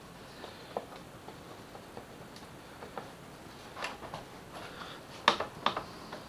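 Scattered small clicks and taps of the motorcycle's plastic front cowling and tools being handled as it is worked loose, with two sharper knocks a little after five seconds in.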